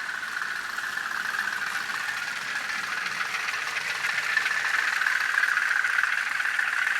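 Diesel engine sound from the DCC sound decoder of an N gauge model of LMS diesel-electric 10001, played through its tiny speaker: a steady thin running sound with little bass, slowly growing louder.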